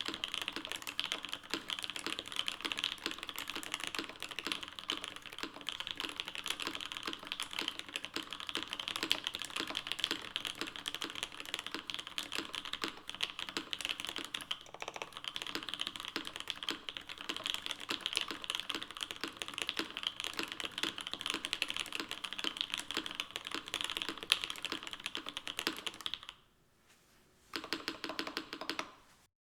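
Fast, continuous typing on a RAMA WORKS M65-B mechanical keyboard with Alpaca linear switches on a gasket-mounted POM plate. The keystrokes come thick and quick, then pause for about a second near the end before a short final run of keystrokes.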